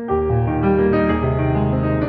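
Instrumental background music of held keyboard chords over a sustained deep bass, with a fuller, louder passage beginning right at the start.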